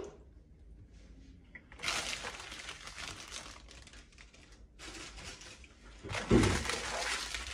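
Clear plastic biscuit packet being handled, crinkling and rustling in two stretches, with a single thump about six seconds in.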